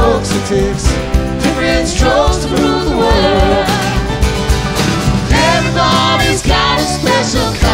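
Live band playing with guitars, drums and keyboards, with a lead vocal singing over it.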